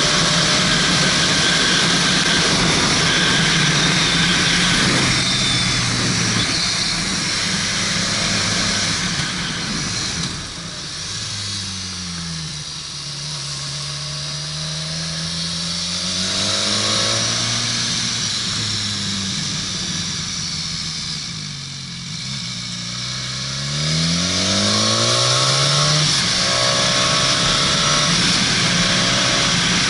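A vehicle's engine pulling along under a steady rush of wind. The engine note drops as it slows about ten seconds in, picks up again, dips once more, then climbs sharply as it accelerates away near the end.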